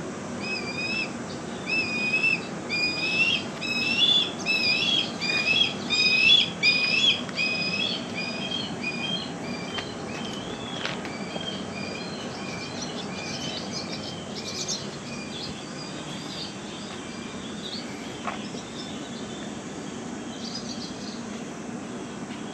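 A bird calling nearby: a long run of short, repeated chirps, about two a second, loudest in the first seven seconds and fading out about halfway through, over a steady low background hum.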